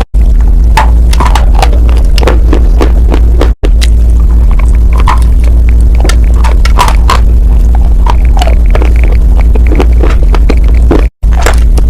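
Close-up crunching and chewing of edible dry chalk with paste: rapid, irregular sharp crunches and crackles over a steady low hum. The sound cuts out briefly three times, near the start, about a third of the way in, and near the end.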